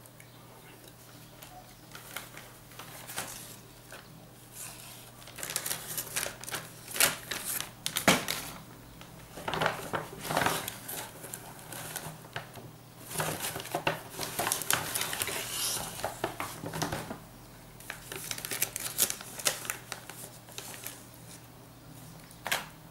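Hands rustling a paper gift bag and crinkling aluminium foil, in several bursts of crackling and clicking with short pauses between.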